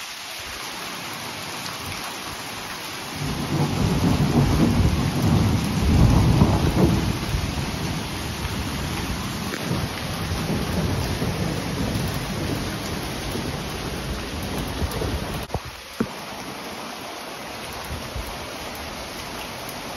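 Steady rain falling, with a long rolling rumble of thunder that builds about three seconds in, is loudest around six seconds in, and fades out over the next ten seconds or so. A single sharp click sounds near the end.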